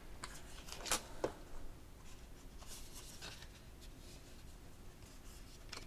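Paperboard phone-box packaging and a paper envelope being handled: soft brushing and rubbing with a few light taps, a sharper tap about a second in and another near the end.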